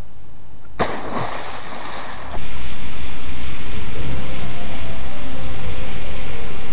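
A boat under way at night: its engine running and the wake water rushing and splashing. The noise starts suddenly about a second in and becomes loud and steady about two and a half seconds in.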